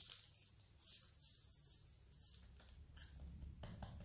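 Faint rustling and light scuffs of hands lifting and pressing a thin sheet of raw dough on baking parchment, over a low room hum.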